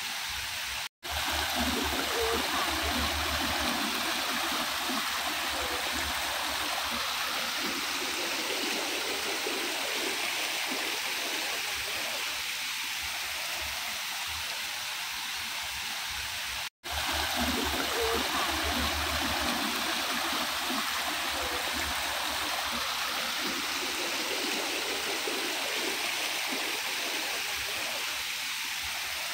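Water running steadily over small rock-garden waterfalls and along a shallow stream. The sound cuts out briefly twice, about a second in and just past halfway.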